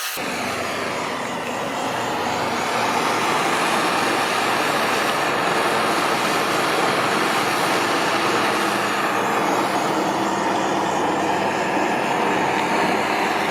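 Propane torch flame burning steadily, heating a copper pipe joint for soldering. It starts abruptly and grows a little louder over the first few seconds.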